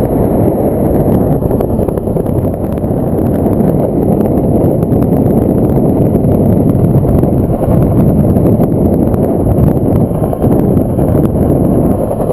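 Loud, steady rush of wind buffeting the camera microphone in flight, mixed with the noise of the helicopter carrying the linemen's basket on a long line.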